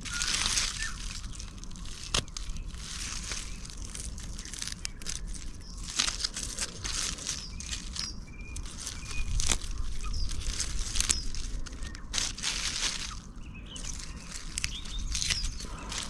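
Rustling and crackling of puha (sow thistle) leaves and stems as the plant is pulled, handled and trimmed with a knife, in many short uneven bursts.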